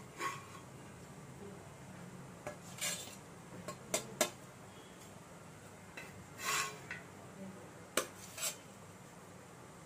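Metal spatula scraping and clinking against a black iron tawa as toasted bread omelets are lifted off it: a handful of short scrapes and sharp clinks spread over several seconds, the longest scrape about two-thirds through.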